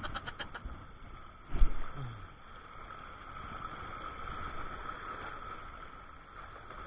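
Muffled noise from a camera in shallow sea water: a steady hiss with a faint constant hum. A run of rapid clicks dies away in the first half second, and there is one loud thump about a second and a half in.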